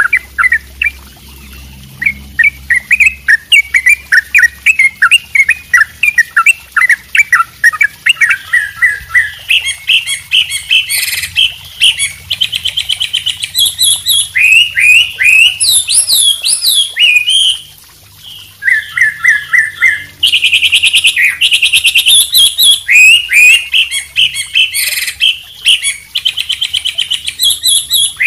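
Mixed cagebird song of a white-rumped shama (murai batu), a trucuk bulbul and a wambi singing together. It opens with quick, repeated chirps, then turns to rapid trills and high whistled phrases, with a short pause a little after halfway.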